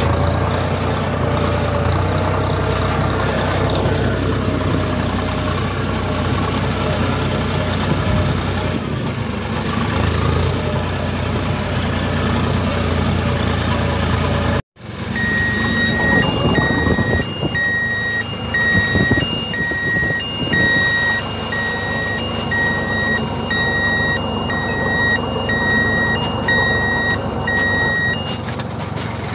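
Massey Ferguson 5710 tractor's diesel engine running steadily under load while pulling a disc harrow, heard from the cab. About halfway through the sound cuts out for a moment. After that a regular electronic beeping, alternating between two tones, repeats for about thirteen seconds over the engine.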